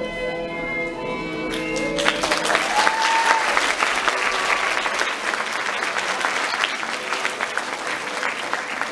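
Orchestral ballet music ends on a held chord about two seconds in, and the audience breaks into steady applause, with one voice whooping briefly as the clapping starts.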